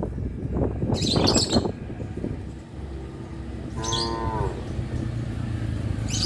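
Cattle mooing, low and drawn out, with a shorter, higher call about four seconds in.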